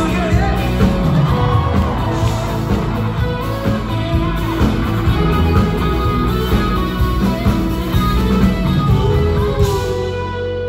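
Live rock band playing electric guitars, bass guitar and drums with vocals, at full volume through the venue PA. Near the end the drumming stops and a held chord rings on.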